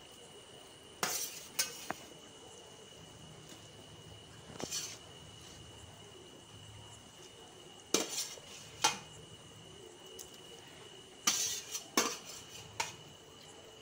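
A metal ladle clinking and knocking against a metal kadhai as lumps of mashed boiled potato are tapped off into the gravy, in short clusters of sharp clinks every few seconds.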